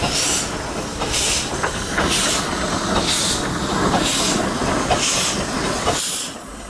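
Romney, Hythe and Dymchurch Railway steam locomotive Northern Chief, a 15-inch-gauge 4-6-2 Pacific, drifting into the station with steam chuffing in regular bursts about once a second over the rumble of the train. The sound falls away near the end.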